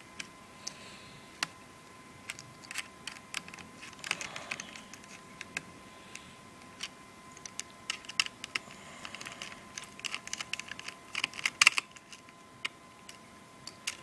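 Small screwdriver turning the tiny screws on a netbook's metal RAM cover: scattered sharp clicks and ticks of metal on metal, coming in bunches and thickest and loudest near the end.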